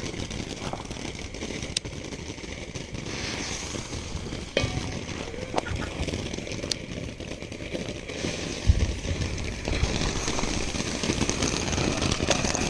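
Consumer fountain firework spraying sparks: a steady hiss with crackling pops, growing a little louder near the end, with a couple of heavier thumps along the way.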